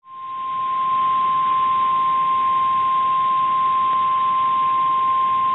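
NOAA Weather Radio warning alarm tone: a single steady 1050 Hz tone over radio hiss, swelling in over the first half second and then holding level. It is the attention signal that comes before a warning message, here a tornado warning.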